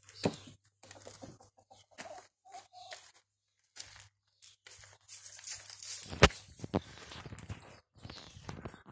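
Irregular crunching and rustling of footsteps in dry leaf litter and dirt, busier in the second half, with one sharp knock about six seconds in.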